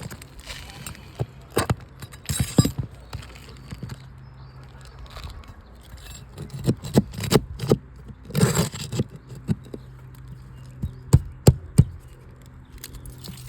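Hand roofing tools working on shingles: irregular sharp metal knocks and clicks with a couple of longer scrapes, as a shingle is pried and worked free of its nails. A faint low hum runs underneath.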